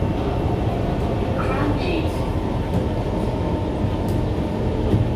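Kawasaki C151 MRT train running at speed, heard from inside the motor car: a steady rumble of wheels on rail with a faint motor whine.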